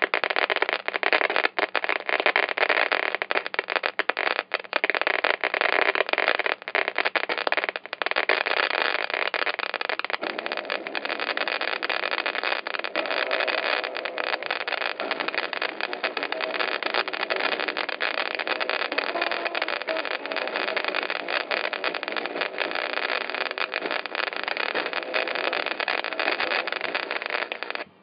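TV speakers crackling and popping loudly with a harsh, static-like noise. It is choppy with many brief dropouts for about the first ten seconds, steadier after that, and cuts off suddenly near the end. It is a fault in the TV's sound output: the same noise comes through external speakers plugged into its headphone jack.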